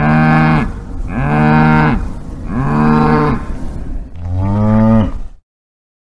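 Cow mooing: four short moos about a second apart, the fourth one deeper, then the sound cuts off abruptly.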